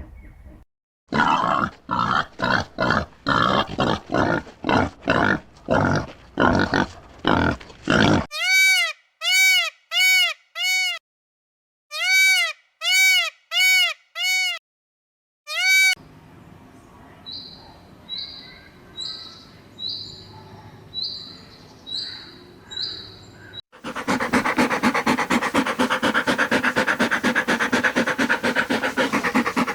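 A succession of different farm animal calls: a run of short harsh calls for the first several seconds, then short clean arching calls in small groups, then faint high chirps about once a second, and a dense, continuous chorus of calls over the last six seconds.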